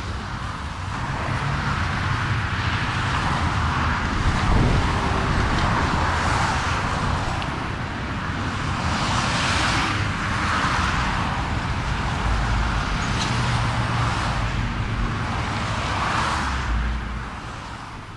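Steady road traffic noise, with cars passing one after another in slow swells over a low rumble, fading out near the end.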